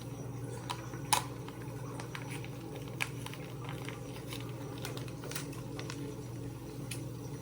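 Scattered light clicks and taps of kitchen utensils and a measuring cup being handled, the sharpest about a second in, over a steady low hum.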